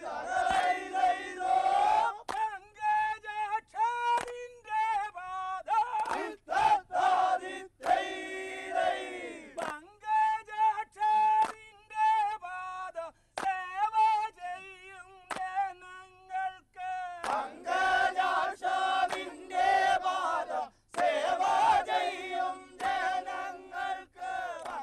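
A group of men singing a chanted Kerala boat song (vanchippattu) in unison, with held, wavering notes in phrases and a few sharp beats between them.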